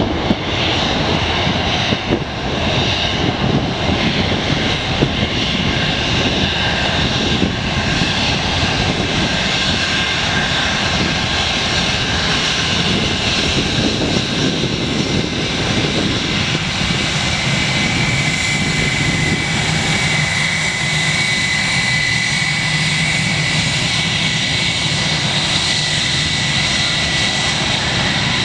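Jet engines of an Airbus A320 airliner running at taxi power as it rolls close past: a steady loud rush, with a high engine whine that comes in about halfway through and drops slightly in pitch as the jet passes.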